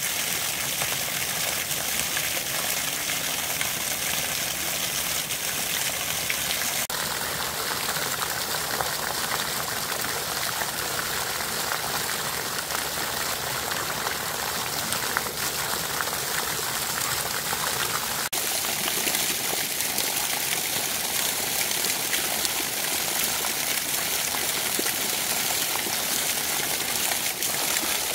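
Shallow stream rushing over mossy rock, a steady wash of water noise; its tone changes abruptly twice, about a quarter and about two thirds of the way in.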